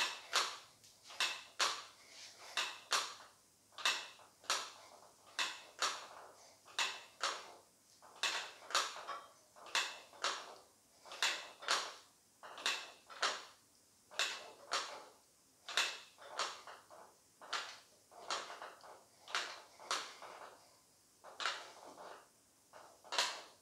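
A man breathing hard and rhythmically while lifting a heavy dumbbell, a short forceful breath in and out with each repetition, about three breaths every two seconds.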